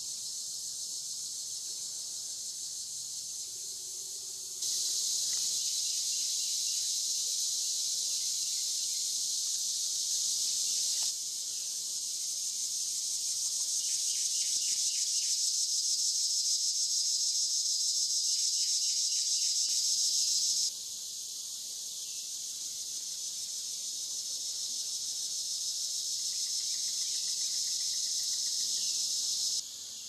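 A steady chorus of cicadas, whose level steps up and down abruptly several times. A Carolina wren sings faintly a few times through it, each song a short run of quickly repeated notes.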